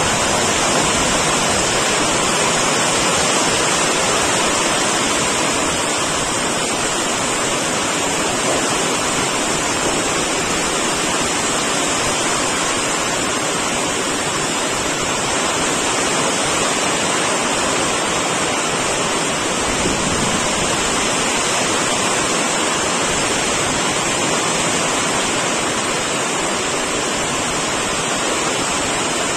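Torrential rain pouring down in a strong windstorm: a loud, steady rushing hiss.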